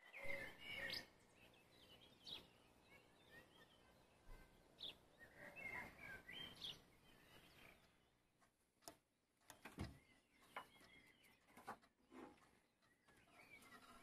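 Faint birds chirping and calling in short scattered phrases, with two sharp knocks about nine and ten seconds in.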